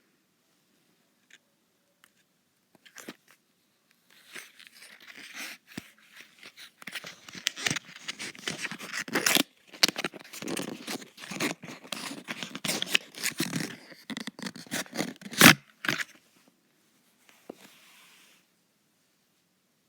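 Packaging being torn open and crinkled by hand, a dense crackling and rustling with many sharp snaps lasting about twelve seconds. The loudest snap comes near the end, and the sound then dies away.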